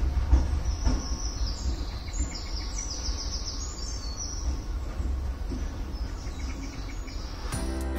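Low rumble of a Class 66 diesel locomotive and its wagons fading as the train draws away, with a few sharp clicks in the first second. Small birds chirp and twitter over it from about a second and a half in to about four and a half seconds.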